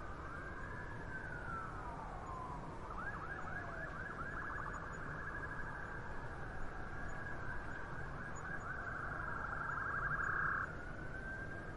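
Emergency vehicle siren in city traffic: a slow rising and falling wail that switches about three seconds in to a fast yelp, which grows louder and cuts off suddenly near the end before the slow wail resumes. A steady low traffic rumble runs underneath.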